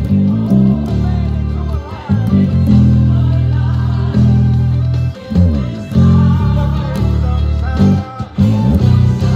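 Electric bass guitar playing held low notes broken by quick runs, over a gospel choir recording.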